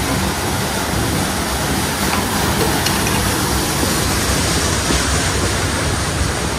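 Steady rushing background noise with a choppy low rumble underneath, even throughout, with no distinct events standing out.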